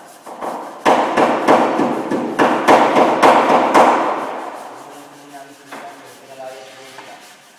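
Panel-beating hammer striking the steel rear body panel of a Mitsubishi L200 pickup: a quick run of sharp, ringing metal blows, about three a second, for the first four seconds. The ringing then dies away.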